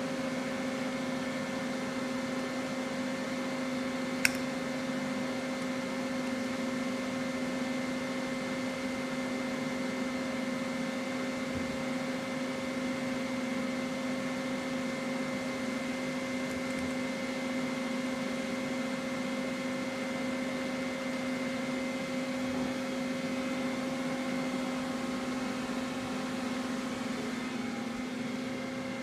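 1994 Hwacheon Hi Eco 31A CNC lathe running under power: a steady machine hum with a fixed whine over it. A single sharp click about four seconds in.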